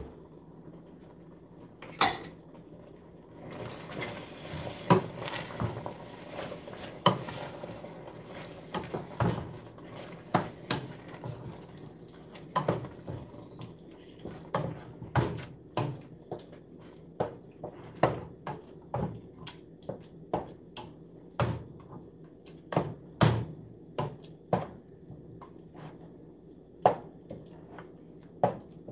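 A wooden spoon stirring a thick mix of shredded chicken, buffalo sauce and cream cheese in a stainless steel pot, knocking and scraping against the pot's sides and bottom. The knocks come irregularly, about one or two a second.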